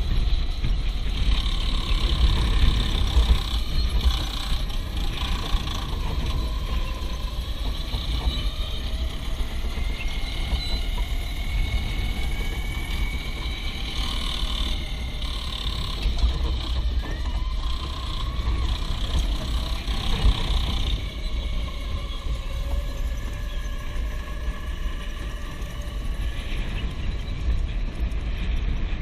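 A go-kart's small engine running under throttle as the kart laps the track, heard from the driver's seat. The engine note rises and falls in pitch over a heavy, uneven low rumble.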